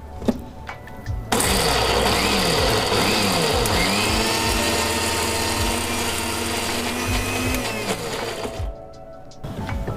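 Electric mixer grinder (mixie) grinding a wet coconut-and-spice masala with a little water. The motor starts about a second in, its pitch rises and falls at first and then settles, and it runs steadily for about seven seconds before cutting off near the end.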